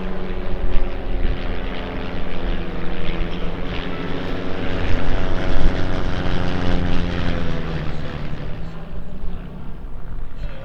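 A formation of propeller planes passing by, engines and propellers droning loudly, their pitch sliding down after the middle as they go past.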